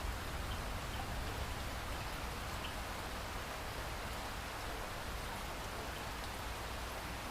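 Heavy rain pouring down steadily, with a few faint drip ticks.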